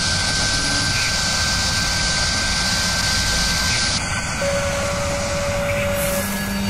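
Sound-effect roar of a CNC milling spindle cutting metal: a steady rush with a thin high whine running through it, and a second, lower steady tone from about four and a half seconds in until about six seconds.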